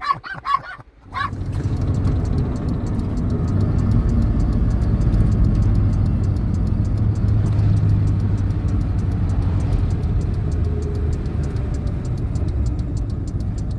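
Car driving on the road, heard from inside the cabin: a steady low rumble of engine and tyres. In the first second, before the rumble sets in, there are a few pitched, voice-like calls.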